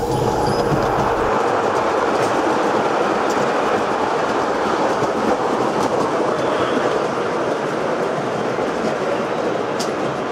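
O-gauge tinplate model train running on its track, its wheels making a steady rolling noise.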